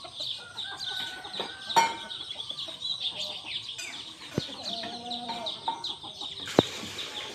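Chickens clucking over a constant chorus of high, rapid chirping, with three sharp knocks, the loudest near the end.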